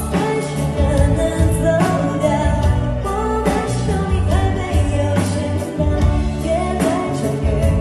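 Background song: a sung melody over a steady beat and bass.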